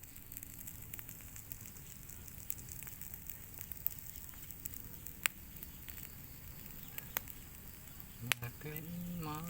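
Fire crackling, with scattered sharp pops over a low steady rumble; a voice starts near the end.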